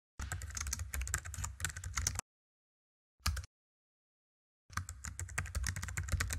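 Computer keyboard typing sound effect: a rapid run of key clicks for about two seconds, a short cluster of a few keys about a second later, then another fast run of typing starting near the end.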